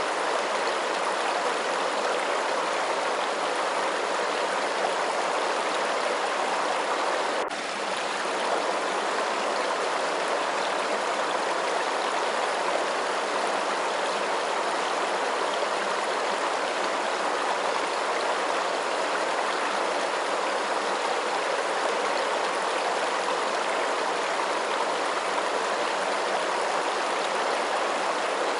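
Running water, a steady even rush, with a momentary dip in level about seven and a half seconds in.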